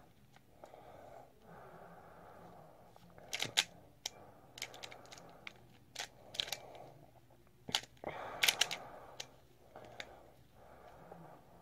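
Plastic pyraminx puzzle being turned by hand: soft rasping of plastic layers sliding, with scattered sharp clicks as the pieces snap into place, bunched into a cluster about three and a half seconds in and another about eight seconds in.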